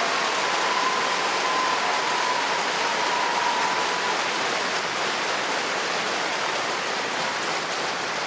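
Arena crowd applauding steadily, the clapping slowly fading.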